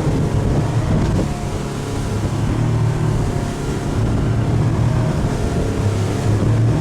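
A motorboat's engine running steadily with a low hum, with wind buffeting the microphone.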